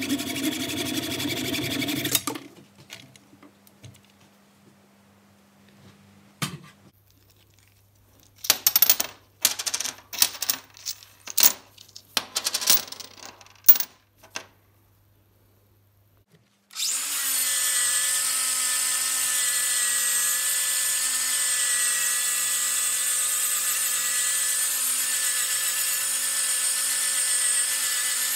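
A hacksaw rasps through aluminium bar stock held in a lathe chuck for about the first two seconds. In the middle comes a string of sharp clinks as turned aluminium discs are set down on a steel table. From about 17 seconds in, an angle grinder runs steadily, grinding on a part clamped in a vise, and this is the loudest sound.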